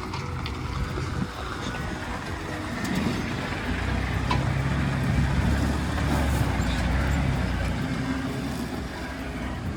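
Off-road vehicle's engine running under load while crawling a rocky trail, a low rumble that swells about three seconds in and stays louder, with a few sharp clicks.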